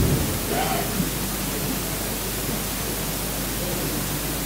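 Steady hiss with a low electrical hum from the hall's sound system, with a faint voice briefly in the first second.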